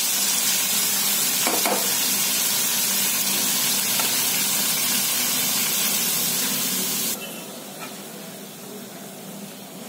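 Whole chickpeas with their tempering sizzling in oil in a kadai, a steady hiss that cuts off suddenly about seven seconds in.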